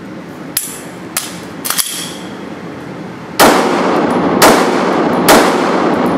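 Glock 18 9mm machine pistol fired single shots in semi-automatic mode on an indoor range: three loud shots about a second apart, each ringing on in the room. A few fainter sharp clicks come before them.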